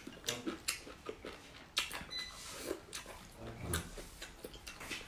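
Wet eating sounds: a person chewing with irregular sharp clicks and lip smacks.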